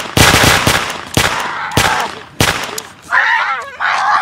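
Gunshot sounds: a rapid burst of sharp bangs at the start, then three single bangs about half a second apart. Near the end come two wavering cries from a child.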